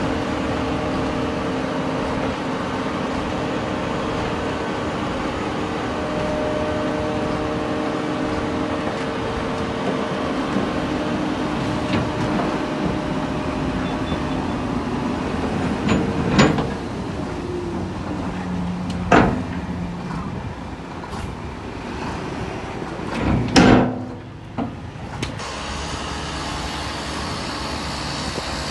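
Diesel engines of heavy earthmoving machinery (dump trucks and a bulldozer) running steadily, with a few loud bangs in the second half, two of them close together.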